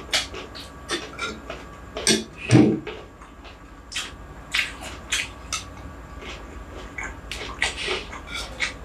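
Close-up eating sounds: chewing a mouthful of rice, with many short wet mouth clicks and smacks. About two and a half seconds in there is one louder, duller knock as a dish is handled, and near the end a metal spoon taps in a bowl of curry.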